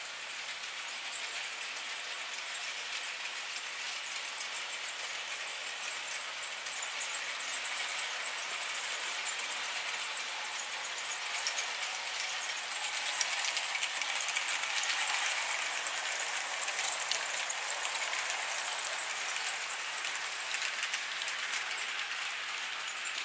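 HO-scale model trains running on the layout track: a steady rattle and clicking of small wheels over the rails, growing louder about halfway through as the trains pass close by.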